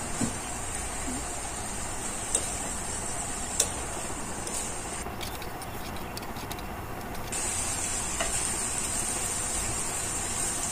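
Chicken and onions frying in oil in a non-stick frying pan with a steady sizzle, while a spatula stirs them, knocking sharply against the pan a few times in the first four seconds.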